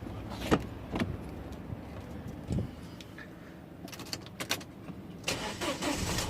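Scattered clicks and knocks, then near the end the 2007 Audi A4 B7's 2.0-litre turbo FSI four-cylinder engine cranks and starts on freshly fitted spark plugs, the repair for a cylinder 4 misfire.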